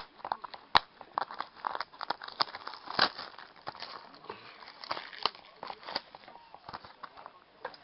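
Packaging of a trading-card box being handled and opened: crinkling and rustling with many short clicks and taps, the sharpest click about a second in.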